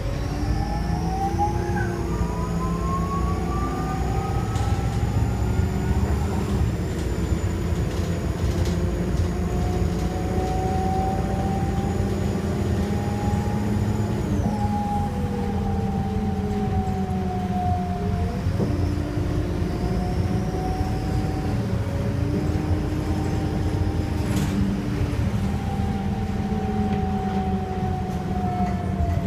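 Optare Solo bus's turbodiesel engine running under way, with a high turbo whistle that holds steady and then drops away about halfway through. Several whines rise and fall in pitch over the engine's rumble, and there is a single sharp click a few seconds before the end.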